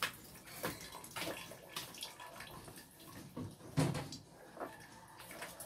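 Kitchen clatter of things being handled and set down: a string of irregular knocks and clinks, with one louder thump nearly four seconds in.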